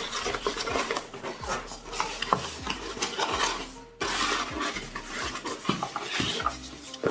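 Unboxing packaging being handled and cleared away: continuous rustling and rubbing with scattered small knocks and clicks.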